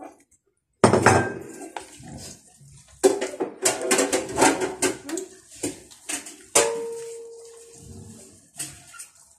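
Tongs clattering and scraping in a frying pan as shredded cabbage and noodles are tossed. One sharper knock about six and a half seconds in rings on, fading over a second or so.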